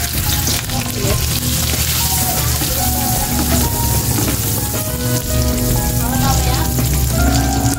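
Butter and oil sizzling steadily in a hot steel wok as a block of butter melts and is pushed around with a metal ladle. Background music with held notes plays under it.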